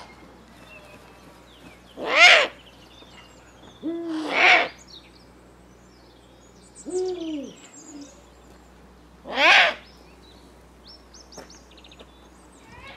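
Eurasian eagle-owl calling: two low, arching hoots a few seconds apart among three louder, higher-pitched calls, with small birds chirping faintly in the background.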